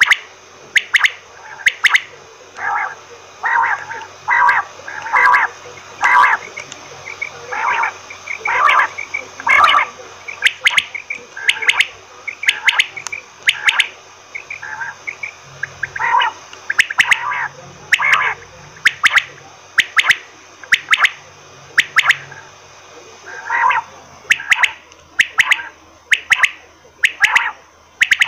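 Quail calling over and over in a long series of short, sharp notes, roughly one or two a second, with a denser cluster of quicker notes for a stretch in the first third.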